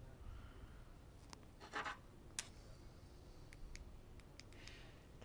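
Faint handling noises of a camera lens cap and a small penlight: a short brushing rub, then a sharp plastic click, then a few light clicks in the second half.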